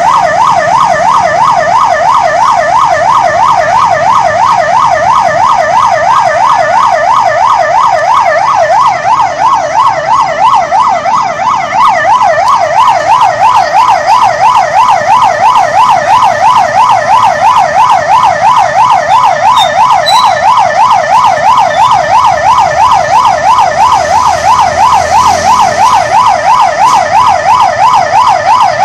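Police vehicle siren sounding a loud, fast yelp, its pitch sweeping up and down about four times a second, briefly quieter about nine to twelve seconds in.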